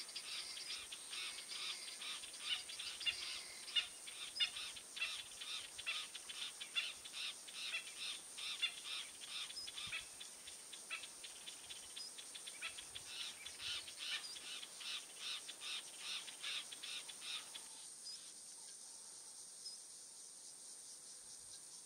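A pack of African wild dogs twittering: a dense run of short, high, bird-like chirps, several a second, that stops abruptly about 18 seconds in.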